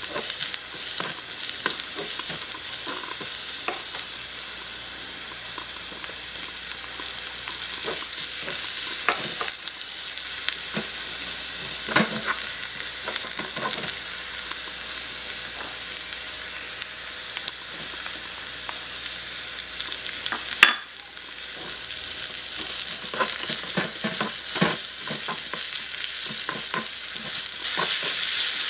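Food frying and sizzling in oil in a miniature metal wok, with a small wooden spatula stirring and clicking against the pan: first minced aromatics, then sliced mushrooms. There is one sharp click about two-thirds of the way through, and the stirring clicks come thicker after it.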